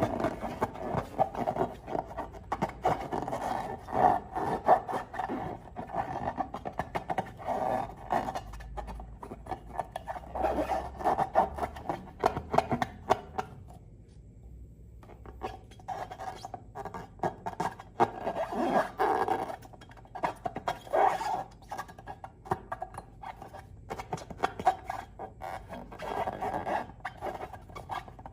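Slime being squished and worked by hand: a dense run of small crackles and squelches, pausing briefly about halfway through.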